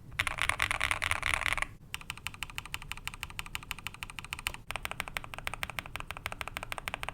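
Mechanical keyboard with lubed and filmed Tecsee Ice Candy switches and PBT keycaps. First comes a quick burst of typing across the home row, then after a short pause a single key (the H key) is pressed over and over in a fast, even stream of clacks. The tone of the clacks changes about two-thirds of the way through.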